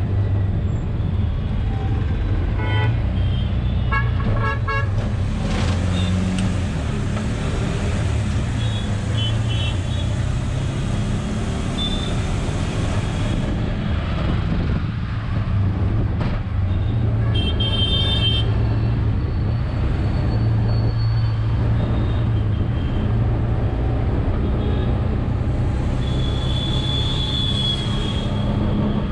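Auto-rickshaw engine running steadily from inside the open cab as it drives through traffic, with vehicle horns tooting repeatedly: short toots and brief honks come several times.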